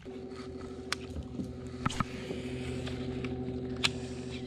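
Fishing reel cranked steadily to bring in a hooked snapper: a steady whir with a few sharp clicks.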